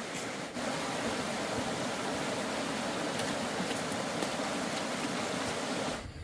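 Steady rushing of water, slightly louder from about half a second in, cutting off suddenly just before the end.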